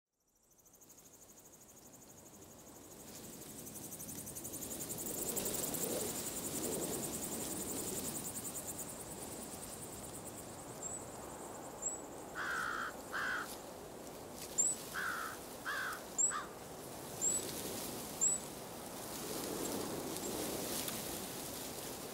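Outdoor rural ambience fading in: insects chirring in a steady, high, pulsing buzz, with a low rushing that swells and fades twice, like wind. About halfway through, a bird gives two pairs of short calls, and thin high chirps repeat about once a second.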